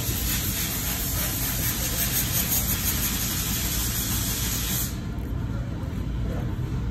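Steady hiss over a low rumble. The highest part of the hiss cuts off suddenly about five seconds in.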